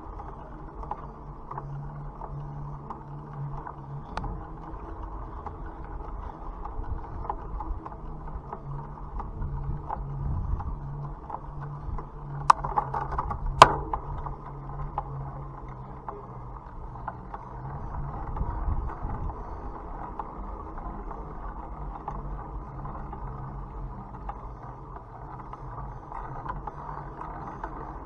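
Bicycle riding noise: a steady rush of tyres on the road and moving air, with two sharp clicks a little over a second apart about halfway through.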